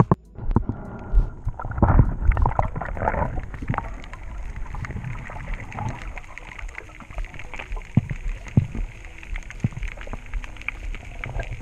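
Underwater sound through a camera's waterproof housing: a muffled rumble of moving water with many small clicks and crackles, louder and busier about two seconds in, as the swimmer moves the camera and spear along the reef.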